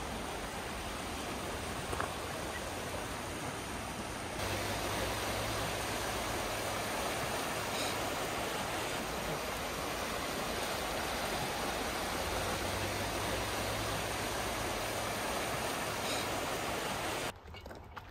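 Steady rush of a fast river running over a stony bed. It grows louder about four seconds in and cuts off abruptly near the end.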